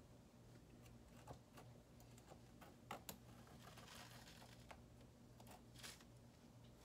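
Faint scratching and light ticks of a needle tool cutting through a soft, fresh clay slab, over a low steady hum.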